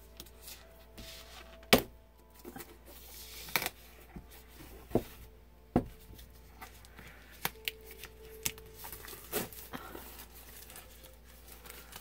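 Plastic shrink-wrap on a card-deck box being slit with a utility knife and handled: crinkling, with several sharp clicks and knocks as the box and knife are handled and set down, the loudest about two seconds in.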